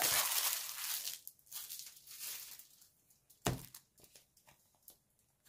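Cellophane wrapping crinkling and rustling as plastic pill organizers are handled, densest in the first second and then dwindling to faint scattered rustles. A single sharp plastic knock about three and a half seconds in.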